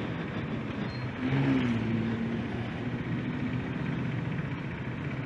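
Road and engine noise from riding a Bajaj Dominar 400 motorcycle in traffic. About a second in an engine note swells and holds steady for a couple of seconds before settling back.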